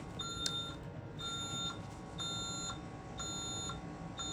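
Honeywell Vista alarm keypad sounding its exit-delay warning after being armed to Away: evenly spaced half-second beeps about once a second. A short click comes about half a second in.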